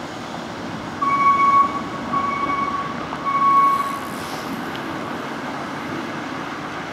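Steady city traffic and road noise from a car driving downtown, with a loud, high-pitched beep sounding three times in a row, each under a second long, starting about a second in.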